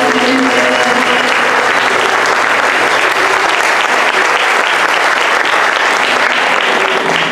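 Concert audience applauding loudly and steadily after a choral piece, with the choir and ensemble's last held chord dying away in the first second.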